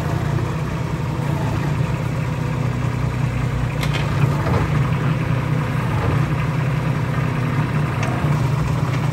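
Komatsu PC05-6 mini excavator's three-cylinder diesel engine running steadily while the machine travels on its rubber tracks, with a brief click about four seconds in.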